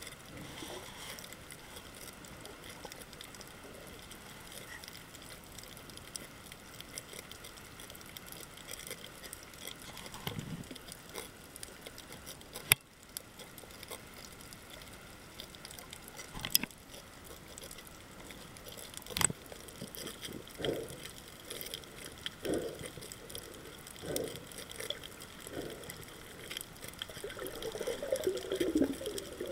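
Underwater reef sound picked up by a diving camera: a steady hiss with a few sharp clicks, then a run of short bubbly water sounds that grows louder and denser near the end.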